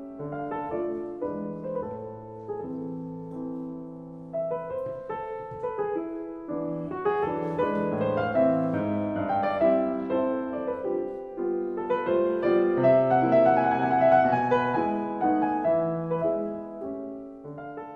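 Background piano music, with a slow run of notes that builds to its loudest a little past the middle and fades near the end.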